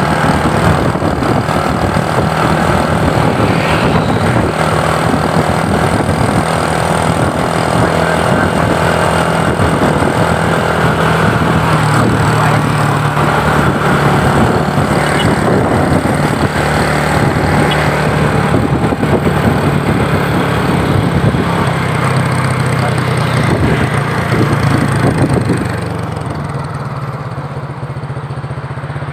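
Steady vehicle engine and road noise in traffic, dense and rumbling with a ragged, wind-like texture, dropping somewhat in level near the end.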